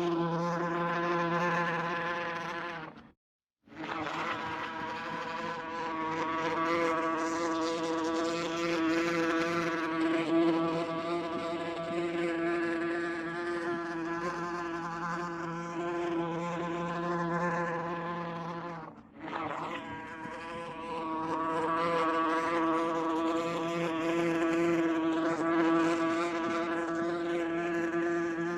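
Wasp buzzing steadily in flight. The buzz cuts out completely for about half a second a few seconds in and dips briefly about two-thirds of the way through.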